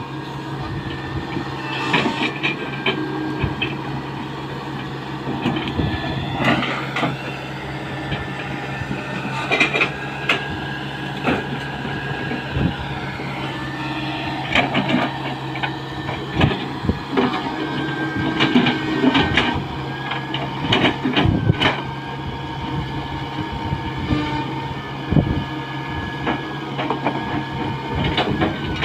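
Tata Hitachi 120H excavator working: its diesel engine runs steadily under load while the machine clanks and knocks many times, with a thin whine rising and falling now and then.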